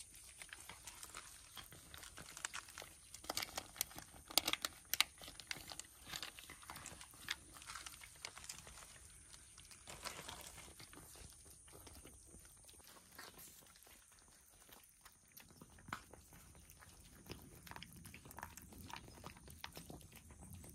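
Cats chewing and crunching their food: quick, irregular crunches, more frequent in the first half.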